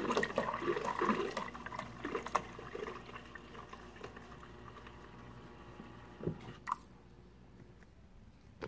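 Water from a Kenmore Elite side-by-side refrigerator's door dispenser running into a plastic cup, now flowing through the newly replaced water inlet valve. The stream gets gradually quieter, and a couple of clicks come near the end as it stops.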